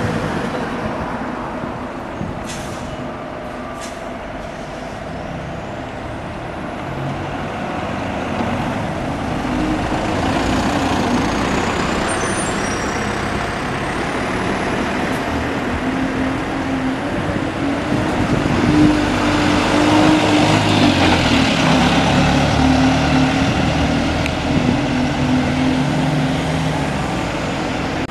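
Heavy diesel vehicle engine running, the sound building through the middle and loudest about two-thirds of the way through.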